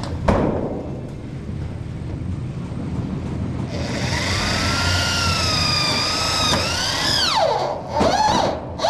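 A knock just after the start, then a handheld power tool running on the metal roofing panel: its motor whine with a hissy edge sets in about halfway through, drops sharply in pitch as it bogs down under load, then makes a few short up-and-down sweeps near the end.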